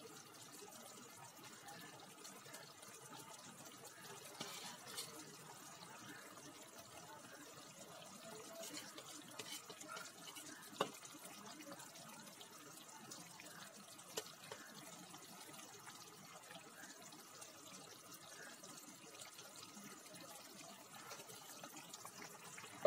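Fish curry simmering faintly in a pan on a gas stove: a soft bubbling hiss with a few small clicks, the sharpest about eleven seconds in.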